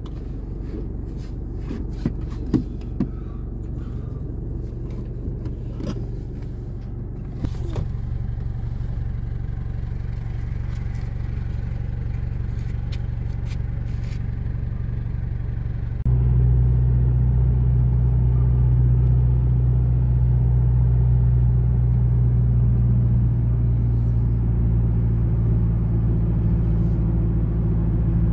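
Car running, heard from inside the cabin: a steady low engine and road drone, with a few clicks and knocks in the first several seconds. About halfway through it jumps suddenly louder, with a stronger, steadier engine hum.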